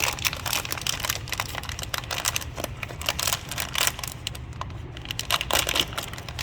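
Plastic packaging of a blind-box toy figure crinkling and tearing as it is unwrapped by hand: a run of irregular crackles and sharp snaps over a low steady hum.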